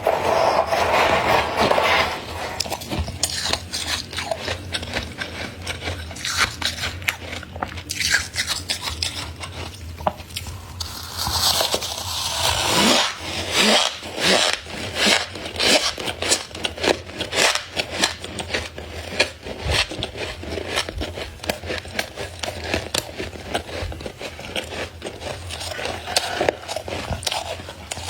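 Freezer frost being scraped and broken loose: a loud rasping scrape at the start, then a long run of short crunches and crackles.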